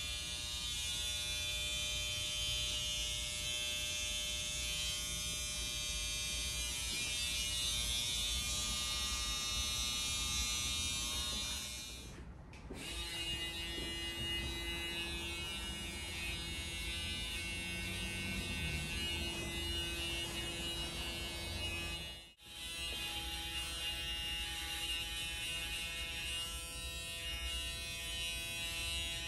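Steady electric buzz of a small motor, as from hair clippers running, dipping briefly about twelve seconds in and cutting out for an instant a little past twenty seconds.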